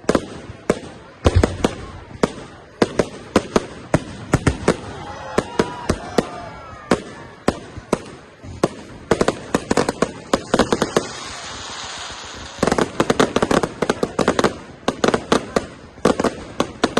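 Fireworks display: a string of sharp bangs and crackles, with a hissing crackle past the middle, then rapid volleys of bursts through the last few seconds.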